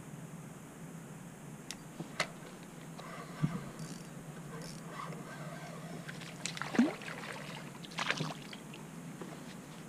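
A small hooked fish splashing at the surface beside a kayak as it is brought in, in short bouts in the second half, after a few sharp clicks and knocks.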